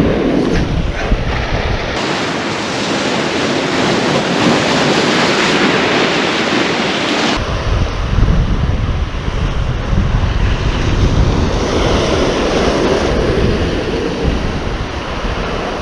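Ocean surf breaking and washing over a rock ledge, with wind buffeting the microphone. The sound changes abruptly about two seconds and again about seven seconds in, and a heavy low rumble follows the second change.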